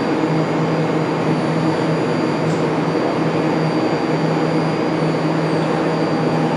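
Bombardier-built BART train standing at the platform with its doors open, its onboard equipment giving a steady hum with a faint high whine.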